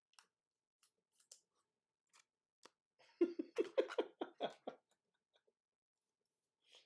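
Faint light clicks of trading cards being handled, then a short run of about eight quick throaty bursts from a person's voice lasting about a second and a half.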